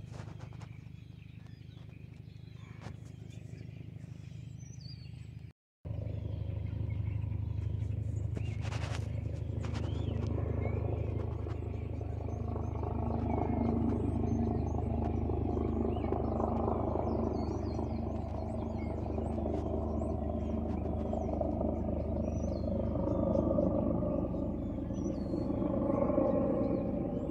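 Military helicopter flying overhead: a steady rotor and engine rumble with a rhythmic blade beat. About five seconds in the sound cuts out for an instant, then comes back louder as the helicopter draws nearer.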